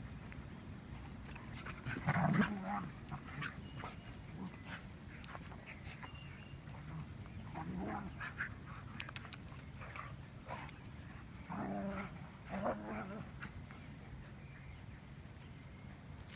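Dogs playing rough together, giving a few short vocal calls. The loudest comes about two seconds in, followed by a couple more later on.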